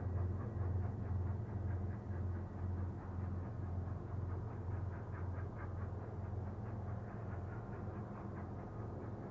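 Union Pacific 844 steam train working up the grade, heard from afar: a steady low rumble with a quick rhythmic beat coming through in the second half.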